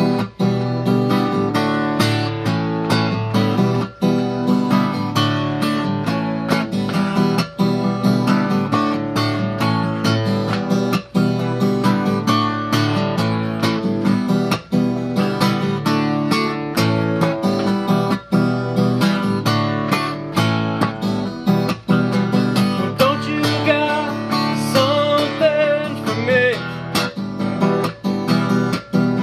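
Acoustic guitar strummed in a steady rhythm, with the chords changing, during an instrumental break between sung verses.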